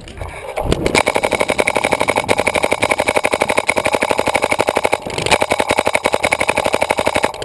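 Clone GT paintball marker firing rapid continuous strings, more than ten shots a second, starting about a second in with a short break a little past the middle.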